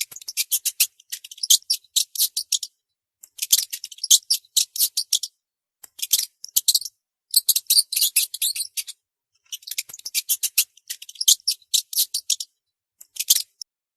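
Small songbird singing a rapid, high-pitched chattering song of quick chirps and clicks, in bouts of one to three seconds with short pauses between them. The song stops shortly before the end.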